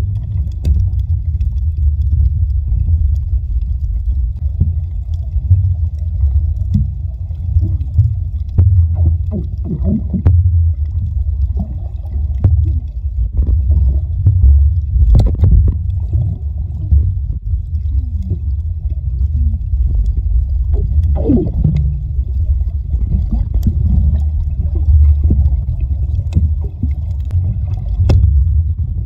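Muffled underwater water noise recorded with the microphone submerged: a steady low rumble with scattered clicks and short squeaky gurgles.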